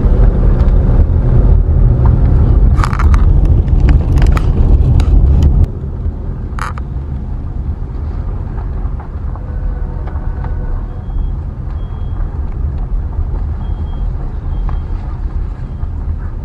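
A car driving, with road and wind noise heard from inside the car. The heavy low rumble drops abruptly about five and a half seconds in, leaving a quieter steady running noise.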